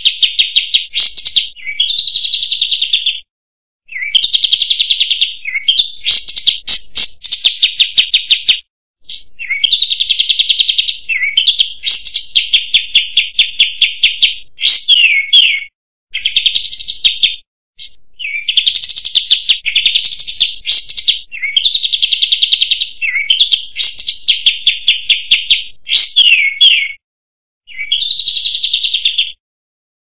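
Olive-winged bulbul (kapas tembak) singing: long runs of rapid trilled notes mixed with quick rising and falling chattering phrases, broken by short pauses of about a second.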